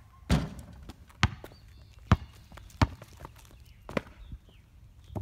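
A basketball bouncing on an outdoor concrete court: five sharp bounces roughly a second apart, the first ringing on briefly.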